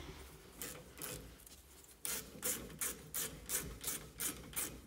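Ratchet wrench being worked back and forth on a van's front brake caliper, its pawl rasping on each back stroke. A couple of single strokes come first, then a steady run of about three strokes a second from about two seconds in.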